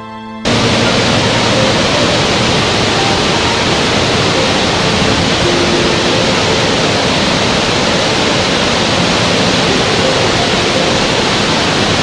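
Waterfall: heavy falling water making a loud, steady rushing noise that cuts in suddenly about half a second in.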